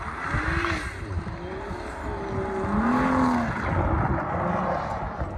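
A vehicle running with a hiss of motor and tyre noise, its pitch rising and falling in slow sweeps, over wind rumble on the microphone.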